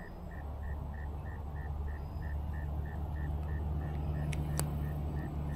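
A low, steady engine hum that grows louder, with a faint high chirp repeating about three times a second over it. Two sharp clicks come near the end.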